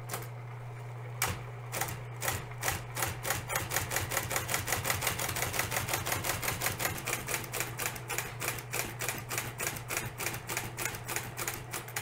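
Bendix G15 typewriter under power: its electric motor hums steadily while the carriage creeps slowly along on a tab. A few separate clicks give way about three seconds in to a fast, even ticking of roughly six clicks a second. The carriage is sticky and slow, a sign of its pull belt having slipped off its roller and rubbing against the frame.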